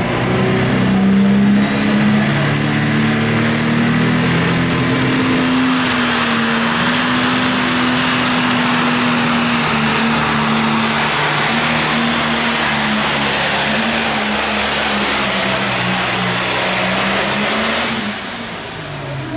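Diesel engine of a modified John Deere 4430 pulling tractor running at full power as it drags a weight-transfer sled down the track. A high whistle rises in pitch a few seconds in. The engine drops away near the end as the pull finishes.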